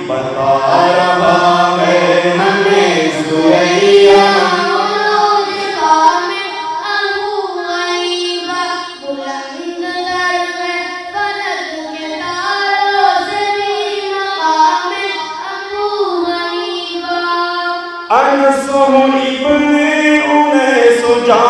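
Devotional singing: a voice chanting an Urdu manqabat in praise of Imam Abu Hanifa, in long, ornamented, sustained lines. About three seconds before the end a new phrase begins, louder and lower.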